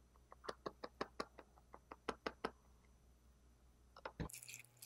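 Plastic capsaicin sauce bottle clicking and tapping as it is shaken out over a pan of spicy steamed seafood: a quick, irregular run of sharp clicks, a few more near the end, then an abrupt cut to a louder crackle.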